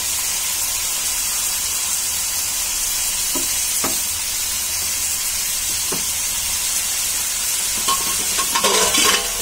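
Spiced onion gravy with fried eggs sizzling steadily in a non-stick frying pan, with a spatula scraping and knocking against the pan a few times and more busily near the end.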